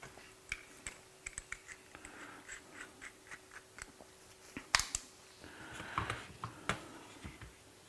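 Scattered small clicks and taps of hand tools and small hardware being handled, with a sharper knock a little under five seconds in and brief scraping sounds. No drill is running.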